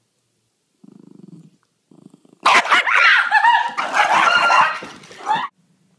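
Small white long-haired dog growling low, then barking and yapping loudly for about three seconds in a wavering, pitched run.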